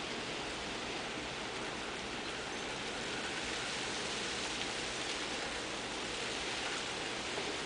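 Thickly ice-coated tree branches moving in the wind, making a steady, eerie hiss much like rain, a little louder from about three seconds in.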